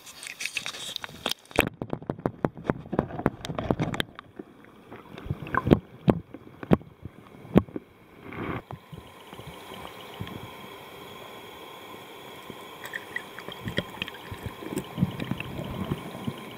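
Lake water splashing and lapping against an underwater camera held at the surface, with many irregular sharp knocks and clicks on the camera. About eight seconds in, the camera goes under and the sound turns to a steady muffled underwater hiss with a few small clicks.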